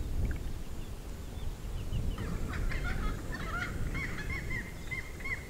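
Birds calling: a run of short, repeated arched notes, about three a second, starting about two seconds in, over a low rush of wind and water.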